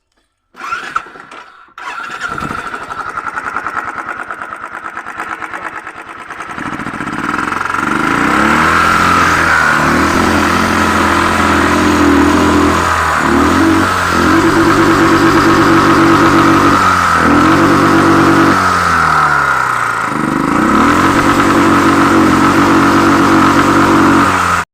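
Royal Enfield Thunderbird 350X's single-cylinder engine started, idling briefly, then revved up and down several times from about six seconds in.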